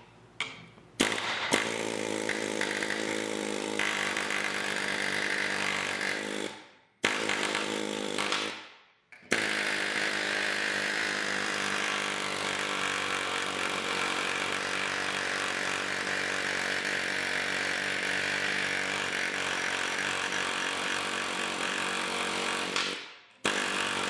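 Pneumatic air chisel with a rounded bit hammering sheet-steel patch metal: a fast, continuous rattle in three runs with short pauses, the longest about fourteen seconds, stopping near the end with one brief last burst.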